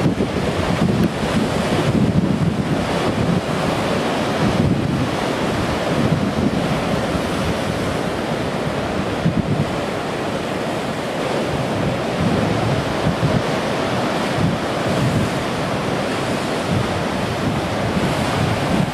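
Storm-surge surf: rough sea breaking against a sea wall and spilling over it, a continuous dense rush of water, with strong wind buffeting the microphone.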